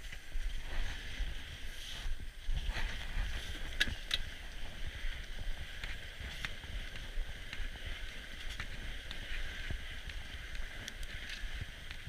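Fat bike rolling over a packed snow trail: a steady rumble of the wide tyres and the bike's frame, with a few sharp clicks and rattles about four seconds in, picked up by a camera mounted on the handlebars.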